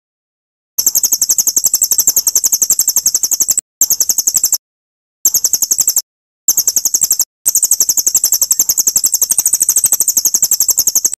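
High-pitched rapid bird trill of about nine even notes a second, played as a masteran recording for training murai batu. It comes in five stretches with short breaks between them, the longest near the end.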